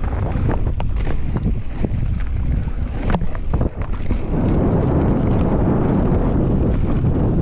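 Wind buffeting the microphone of a camera on a mountain bike speeding down a dirt trail, with rattles and knocks from the bike over bumps in the first half. From a little past halfway this gives way to an even rush as the tyres roll over dry leaf litter.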